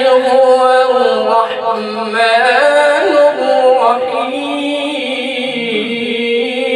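Male qari reciting the Quran in melodic tilawat style, one voice drawing out long held notes with quick winding ornaments about three seconds in.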